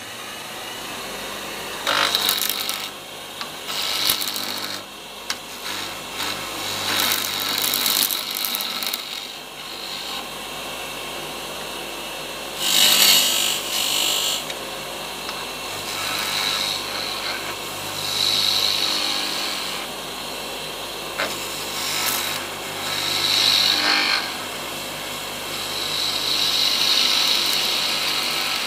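Wood lathe running with a steady motor hum, and a turning tool cutting into a spinning walnut blank in repeated short passes of a second or two each, roughing it round and cutting a tenon with a parting tool.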